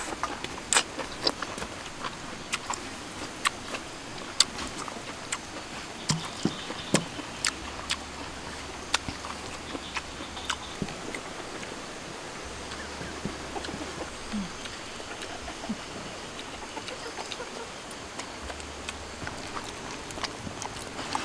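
A person chewing fish and smacking her lips close up: irregular sharp wet clicks and smacks, thickest in the first half and thinning out later.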